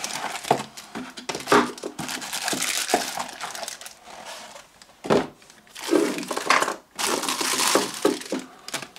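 Clear plastic bags around a mains charger and cables crinkling as they are handled, together with a moulded paper-pulp packaging tray being lifted and moved: irregular rustling and crackling with a few sharper knocks.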